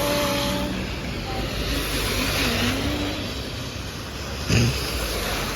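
Steady road-traffic noise, as of a car going by on a street, with a brief louder bump about four and a half seconds in.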